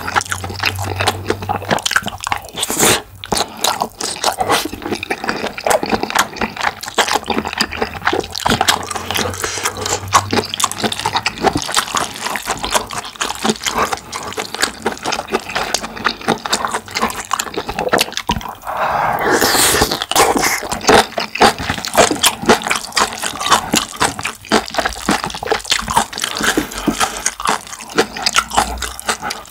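Close-miked chewing and slurping of black bean sauce noodles and rice: a steady stream of wet smacking clicks and mouth noises.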